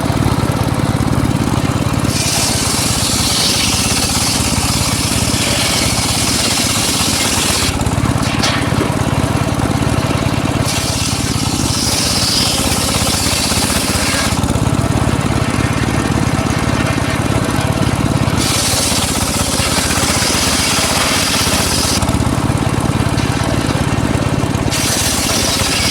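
Homemade circular saw cutting teak wood. Its drive runs steadily underneath while the blade goes through the wood four times, each cut a loud hiss lasting a few seconds, with the blade spinning quieter between cuts.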